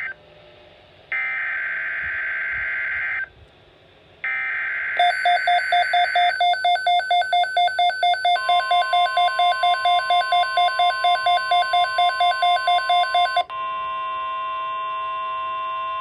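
Midland NOAA weather radio sounding a severe thunderstorm watch alert. First come two harsh, buzzy SAME header data bursts. About five seconds in, the radio's own rapid pulsing alert beep starts. The steady 1050 Hz weather-radio alert tone joins a few seconds later and carries on alone after the beeping stops near the end.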